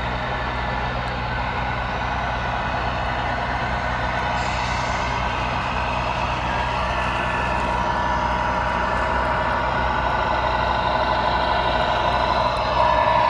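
Radio-controlled scale truck's sound module playing a steady diesel-engine sound through its small speaker as the model drives. It grows a little louder near the end.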